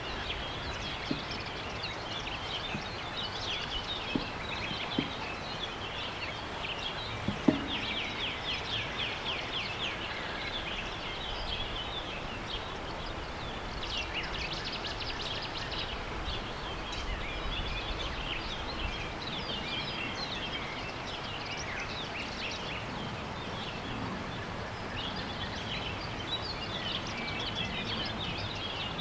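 Birds chirping and trilling over steady background noise, with a few sharp clicks in the first eight seconds, the loudest about seven and a half seconds in.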